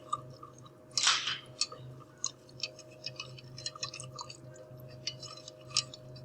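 Wire whisk beating a sauce of chicken broth and sour cream in a bowl: quick, irregular clicks and swishes as the wires hit the bowl, with one louder rush of noise about a second in.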